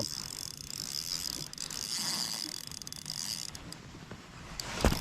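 Fishing reel being cranked with a steady ratcheting whir as a hooked bass is reeled in. A single sharp knock comes near the end.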